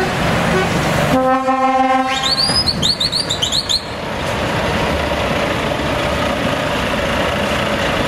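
Volvo lorries' diesel engines running as they pull away. About a second in, a truck horn sounds one steady note for about a second. A quick run of high whistle-like tones follows, each rising and falling.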